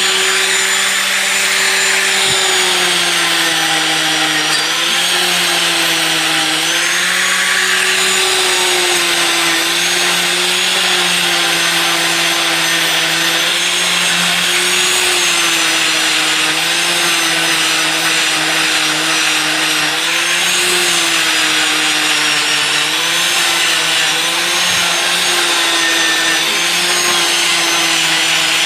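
Electric power tool running steadily while buffing a stainless steel exhaust elbow, a rubbing, grinding hiss under a motor whine whose pitch sags and recovers every couple of seconds.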